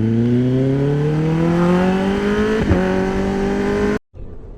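Motorcycle engine accelerating, its pitch rising slowly and steadily as the revs climb, then cutting off suddenly near the end.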